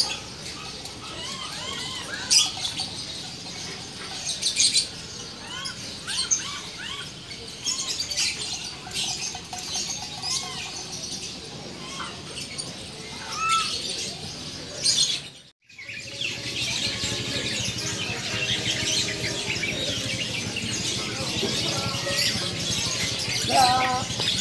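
Many caged birds chirping and calling at once, a dense overlapping chatter of short high chirps, broken by a sudden brief dropout about fifteen seconds in.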